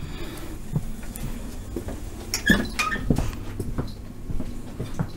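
Footsteps and scattered knocks and clicks from someone walking through a train carriage carrying a camera, with a brief squeak about two and a half seconds in, over a steady low hum.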